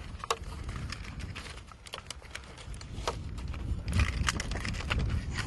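Scattered light clicks and taps from a Molix soft-plastic lure with a metal blade and hooks being handled, over a low wind rumble on the microphone. The taps come a little closer together and louder about four seconds in.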